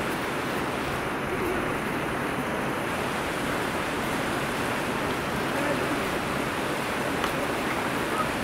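Fast-flowing river rushing over stony shallows and rapids: a steady, even wash of water noise.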